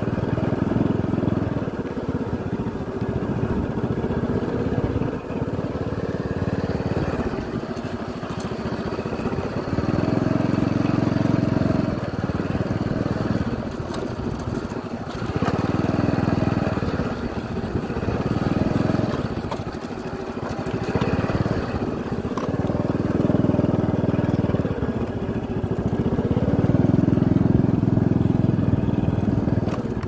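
Motorcycle engine running as the bike rides along a dirt track, with a low rumble that swells and eases every few seconds.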